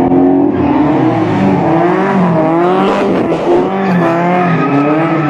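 Tofaş Doğan SLX car engine revving hard, its pitch wavering up and down with the throttle as the car slides sideways in a drift, with tire squeal mixed in.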